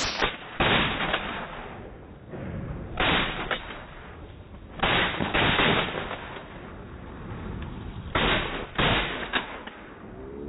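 Shotgun firing about six shots, some in quick pairs about half a second apart, each with a short echoing tail.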